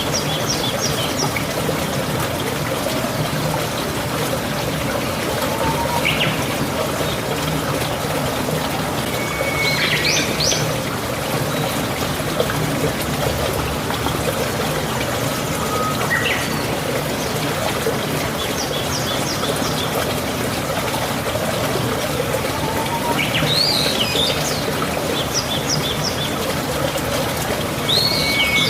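Water running steadily like a small stream, with birds chirping and trilling briefly every five or six seconds.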